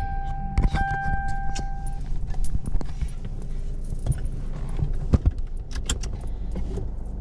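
Car seat belt being pulled out and buckled, with many sharp metallic clicks and rattles. A car's steady electronic warning tone sounds for the first two seconds.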